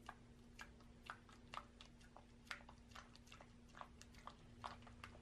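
Silicone spatula stirring thick cream cheese batter in a glass bowl, its head clicking and scraping against the glass in quiet, irregular taps, about three a second, over a faint steady hum.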